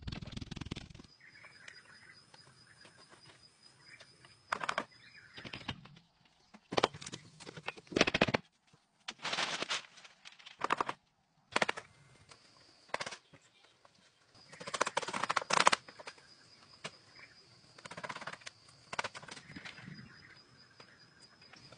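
Bamboo poles and strips being handled and fitted, rustling and clattering in irregular short bursts, with a faint steady high tone in the background.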